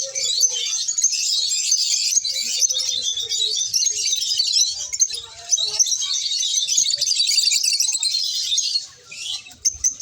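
Lovebirds chirping and chattering: a dense, unbroken stream of high chirps that thins out briefly near the end.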